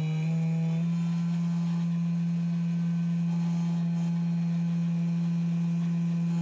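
Table-mounted router spinning a large-diameter cutter with no workpiece, running as a steady hum. The pitch steps up twice in the first second as the variable-speed dial is turned up, then holds steady. The big cutter is run at reduced speed, raised only until it starts to vibrate.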